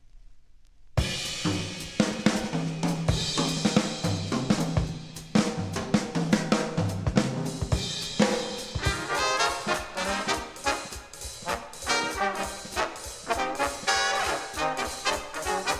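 Big-band South African jazz played from a vinyl record: after about a second of quiet groove with faint surface clicks, a track starts suddenly with drum kit, a stepping bass line and a brass section.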